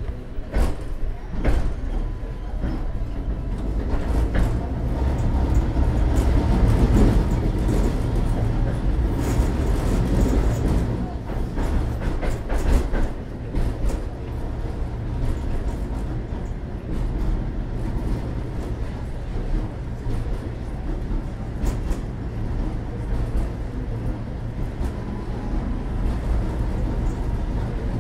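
Tatra T3 tram heard from inside the passenger car while running along the track: a steady low rumble of wheels and running gear, with occasional sharp knocks from the rails. It gets louder a few seconds in.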